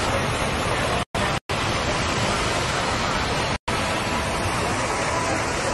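Steady, loud rushing hiss like static, with no tone in it. It is broken by short dead-silent gaps: two in quick succession about a second in, and one more a little past the middle.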